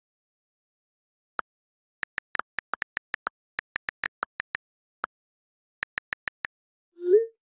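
iPhone keyboard clicks as a text message is typed: a single click, then quick runs of key taps, with a few lower-pitched clicks mixed in. Near the end comes the short rising whoosh of the iMessage being sent.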